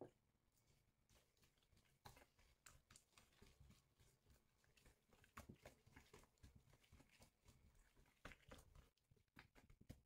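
Faint, irregular squelching and slapping of a soft, wet yeast dough being kneaded by wet gloved hands in a glass bowl. The sounds start about two seconds in.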